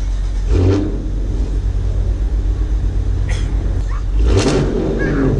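Dodge Challenger R/T's 5.7-litre HEMI V8 idling with a steady low rumble, with two brief louder surges, about half a second in and about four seconds in.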